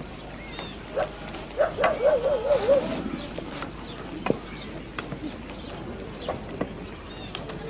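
A farm animal's wavering bleat about two seconds in, over scattered light taps of footsteps and a walking stick on stony ground.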